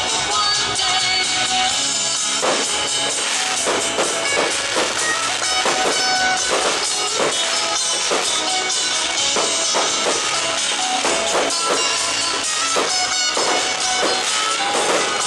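Loud music from a pyromusical show's soundtrack, dense and continuous with a regular beat.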